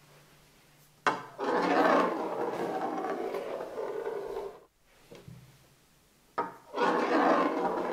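A small metal ball set down with a sharp click and rolling across a tabletop surface with a rough, rasping rumble for about three seconds. The same click and roll come again near the end.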